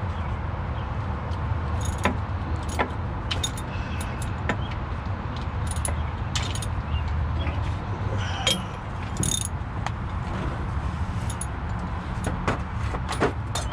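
Irregular metallic clinks and taps of hand tools and bolts being worked on a truck starter's mounting, over a steady low rumble.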